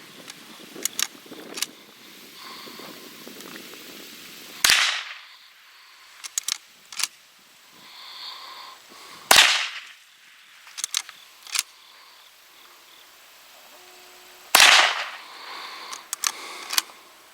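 Henry .22 lever-action youth rifle fired three times, about five seconds apart, with sharp cracks. Each shot is followed by a quick run of metallic clicks as the lever is worked to eject the case and chamber the next round.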